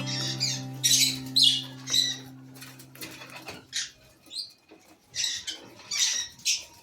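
Lovebirds chattering in a colony: clusters of short, shrill chirps and squeaks, some louder than others, with brief gaps between them.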